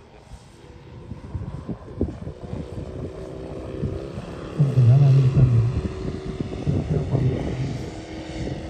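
Propeller engine of a large-scale RC model plane in flight, a steady drone with a held tone that grows louder around the middle.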